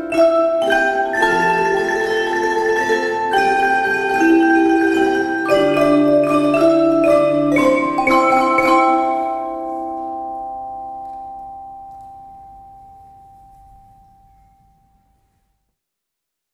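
Instrumental music on mallet percussion, struck notes and chords at a lively pace; about nine seconds in the playing stops on a final chord that rings on and slowly dies away to silence.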